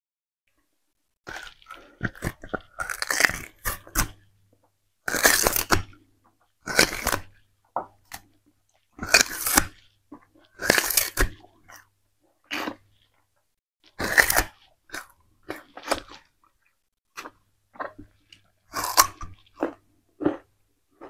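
Close, loud crunching and chewing of raw purple sugarcane: the fibrous stalk is bitten and torn with the teeth and chewed, in irregular crunches every second or two, starting about a second in.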